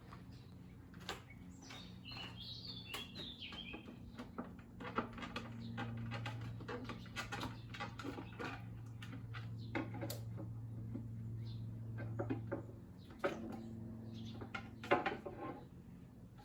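Irregular clicks, knocks and scrapes of the tank on an RGNT Scrambler SE electric motorcycle being wiggled loose and lifted off its steel tube frame, over a steady low hum. A brief high chirping comes about two to four seconds in.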